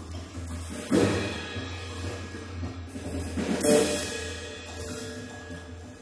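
Experimental electronic music: a steady low drone with two loud crashing hits, a sudden one about a second in and a swelling one a little past halfway, each fading away over about a second.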